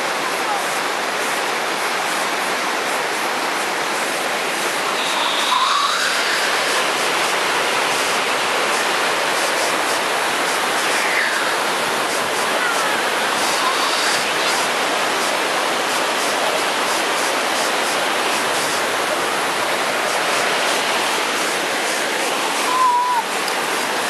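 Rocky stream and waterfall water rushing in a steady, loud hiss, with a few short rising whistles over it.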